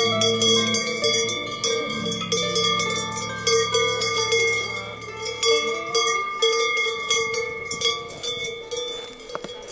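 Alpine cowbells clanging irregularly, with a steady ringing tone under the strokes. Soft music with low held notes plays beneath and drops out about halfway through.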